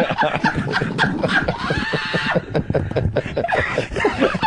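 A group of men laughing together, several laughs overlapping in quick, repeated pulses.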